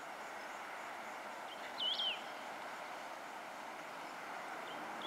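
A bird calls once about two seconds in, a quick whistled phrase that sweeps up and falls away, and starts another call at the very end. Under it is a steady hum of distant lorry traffic on a highway.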